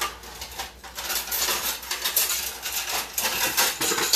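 Kitchen utensils clattering and scraping against a metal cooking pot and dishes: a quick, irregular run of knocks and scrapes that thickens about a second in.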